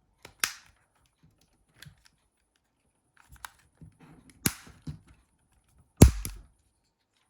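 Sharp clicks and taps of plastic Nokia 6600 housing parts being handled and pressed together, a handful of separate clicks with the loudest, a snap with a dull knock, about six seconds in.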